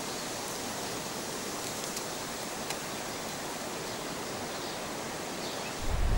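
Steady, even outdoor hiss with no distinct events. A deeper rumble comes in near the end.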